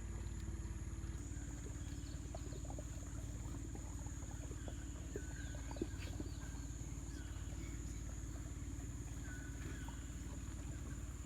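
Small outboard motor on a dinghy running steadily, with a steady high insect buzz over it and a couple of short bird calls.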